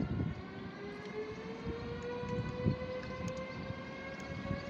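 Electric locomotive approaching at the head of a passenger train: an electric whine from its traction equipment, rising slowly in pitch, over a low rumble of wheels on the rails with a few dull thumps.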